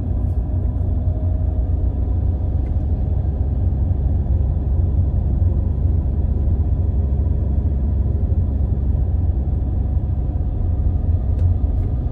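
Steady low rumble of a Hyundai i20 driving along, heard from inside the cabin: engine and tyre noise at a constant pace.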